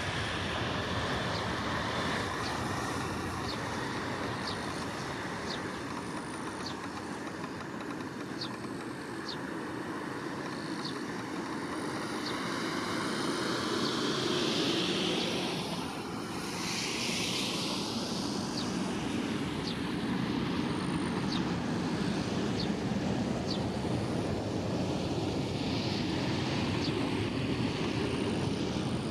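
Boeing 767-300ER's twin General Electric CF6-80C2 turbofans at takeoff thrust: a continuous jet engine noise as the airliner rolls, lifts off and climbs away, dipping briefly about halfway through and swelling again afterwards.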